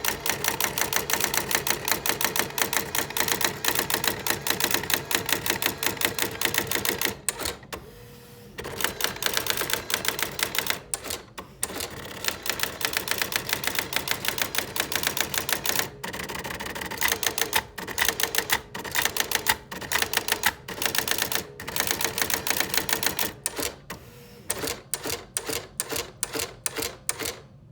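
Brother AX-15M electronic daisy-wheel typewriter printing its built-in demo text by itself: a fast, even rattle of character strikes, broken by a couple of short pauses, with slower, spaced strikes near the end.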